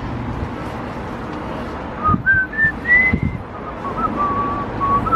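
A whistled tune of short, clear notes stepping up and down starts about two seconds in, over a steady background hiss.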